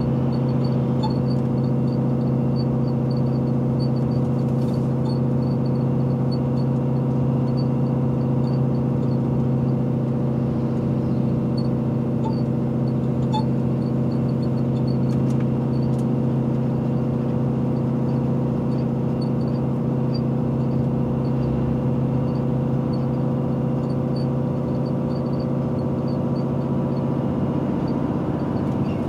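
Scania R450 truck's 13-litre six-cylinder diesel engine running at a steady speed, heard from inside the cab while cruising. A faint, regular ticking goes on above the engine sound.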